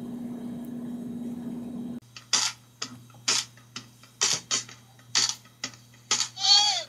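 A steady low hum for about two seconds, then background music begins: a low drone under crisp, clicking percussion in an uneven beat, with a short falling sweep near the end.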